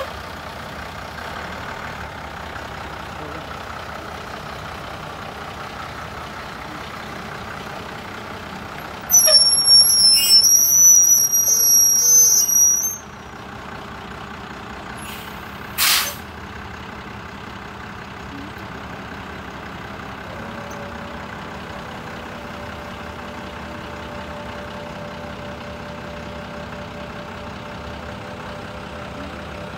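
1992 Ford F-700 dump truck idling steadily. About nine seconds in, a loud high whistling squeal lasts about four seconds, and a short sharp hiss follows a few seconds later. From about twenty seconds a steady whine joins the idle while the dump bed is raised.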